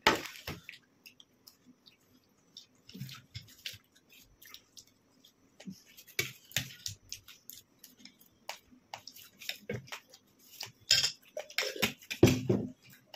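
Spoons clicking and scraping on steel plates while two people eat chocolate cake fast, with chewing between, and a louder cluster of knocks near the end.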